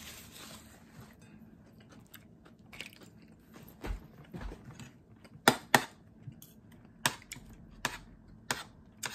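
Paper napkin rustling briefly at the start, then a fork and spoon clinking and scraping against a plate while eating, with several sharp clinks in the second half, and some chewing.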